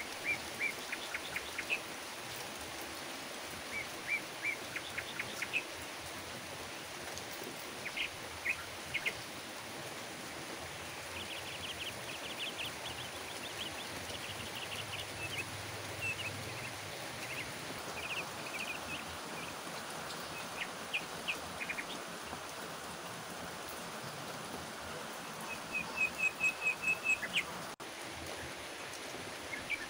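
Steady rain falling, with birds chirping in short bursts over it throughout; near the end a rapid run of about eight sharp chirps is the loudest sound.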